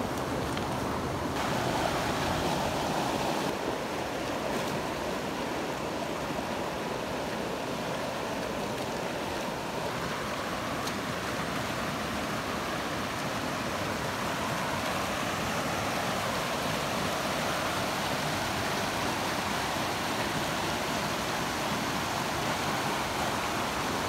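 Stream water rushing steadily, a constant even roar of flowing water.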